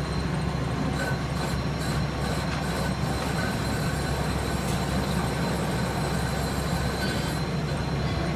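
Metal lathe running, spinning a steel pipe in its three-jaw chuck: a steady hum from the motor and headstock gearing with a thin, steady high whine over it, and a few faint light clicks in the first couple of seconds.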